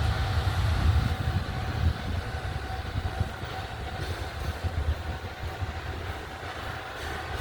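Freight train hauled by a JR Freight EF210 electric locomotive rolling past at slow speed: a continuous low rumble with a faint steady hum over it, loudest in the first two seconds.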